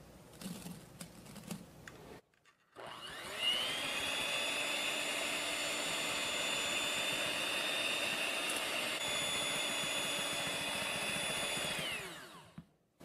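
Electric hand mixer with its beaters whipping a mixture in a glass bowl. The motor starts about three seconds in, winds up quickly to a steady high whine, then winds down and stops near the end.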